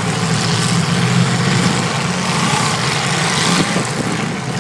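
Several demolition derby cars' engines running together, a loud, steady din with a constant low band, over broad arena noise.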